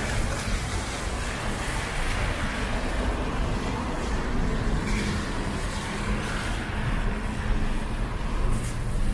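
City traffic on rain-wet streets: cars driving past with tyres hissing on the wet pavement over a steady low rumble of engines.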